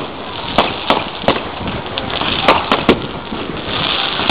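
Fireworks display: aerial shells bursting with sharp bangs, about six of them, three in quick succession about two and a half seconds in, over a continuous noisy hiss.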